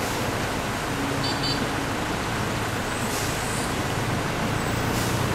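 Steady road and engine noise of a moving vehicle driving along.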